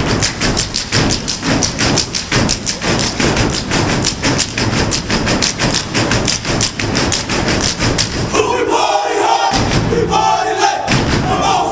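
Step team stomping and clapping in a fast, steady rhythm of sharp thuds. About eight seconds in the stepping stops and gives way to shouting and cheering.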